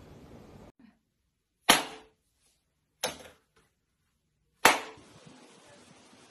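Three sharp hits, each dying away quickly, spaced a little over a second apart; the first and last are the loudest. After the last, a steady low hiss.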